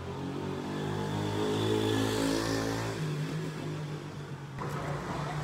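A motor vehicle's engine running close by on a city street, a steady low hum with traffic noise; about three seconds in the engine note changes to a different pitch.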